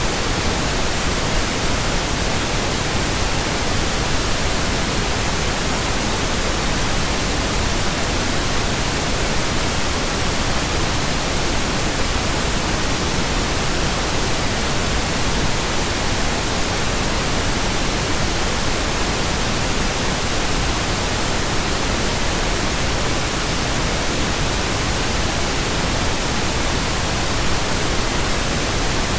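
Steady synthetic pink noise: an even, unchanging hiss spread across all pitches, with no tones, clicks or changes.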